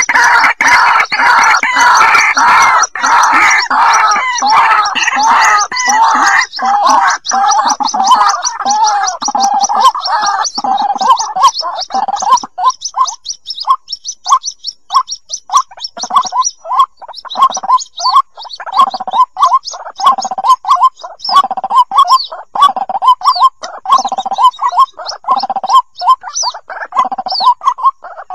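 White-breasted waterhen chicks calling for their parent. Dense, overlapping chattering calls thin after about ten seconds into a rapid run of short, separate calls with high peeps above them.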